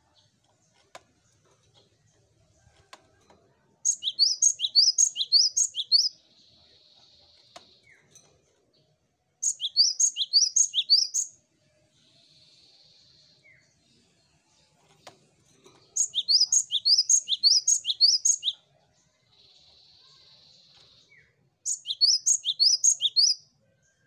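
Cinereous tit (gelatik batu) singing: four bursts of song, each a quick run of the same short ringing phrase repeated over about two seconds. A softer, drawn-out buzzy hiss fills three of the gaps between bursts.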